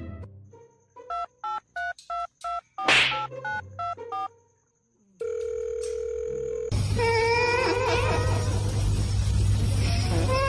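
A quick run of phone-keypad-like beeps, then a steady dial-tone-like hum. About two-thirds of the way in, a noisy clip cuts in with an animal's high, wavering cries over steady background noise.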